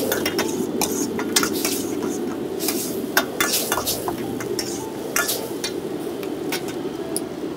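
Metal ladle stirring vegetables in a wok, with repeated sharp clinks and scrapes of metal on metal, over the steady rush of a high-flame gas wok burner.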